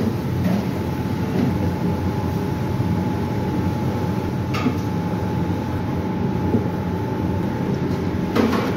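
Steady low kitchen rumble with a thin, steady whine over it, while a metal spoon stirs rice in a steel pot, knocking against the pot once about halfway through and again near the end.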